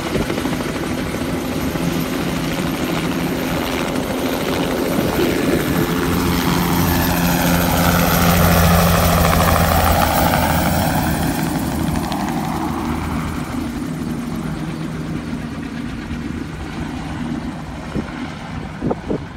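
Helicopter rotor and turbine noise, swelling to its loudest about halfway through as the helicopter passes close, then fading as it moves away.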